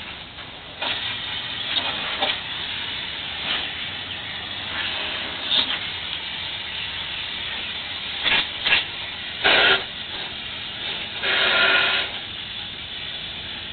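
Garden hose spray nozzle hissing as a jet of water sprays against a screen and glass, rising about a second in and then steady, with several short louder surges in the second half.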